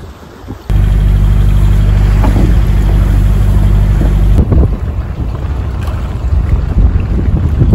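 A sailboat's inboard engine running steadily under a boat, with wind noise on the microphone, starting suddenly about a second in. From about four and a half seconds the engine drone gives way to gusty wind buffeting the microphone and water rushing along the hull.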